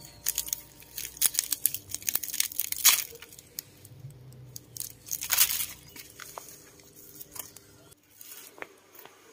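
Pineapple crown being twisted off the fruit by hand: a run of crackling, tearing rustles from the stiff leaves and fibrous core, loudest in the first three seconds and again about five and a half seconds in, with the leaves scraping on a woven bamboo basket.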